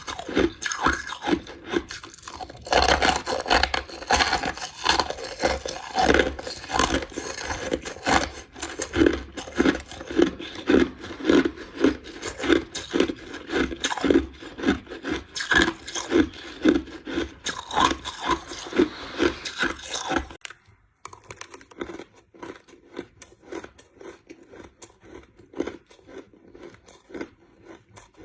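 Crushed ice being chewed: a steady rhythm of crunches, about two a second, turning much quieter about two-thirds of the way through.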